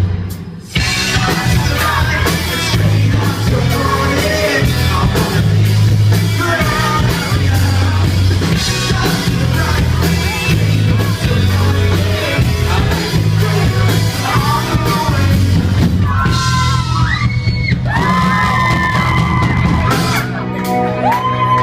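Live rock band with lead guitar and drums playing, with singing over a pulsing bass line. It breaks off briefly just after the start, and long held, sliding vocal notes come in near the end.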